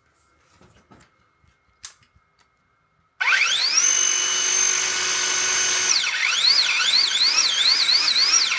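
DeWalt 18-volt battery multitool's electric motor spinning up about three seconds in with a rising whine and running at a steady high pitch. Partway through, the trigger is pulsed, so the whine rises and falls in pitch several times.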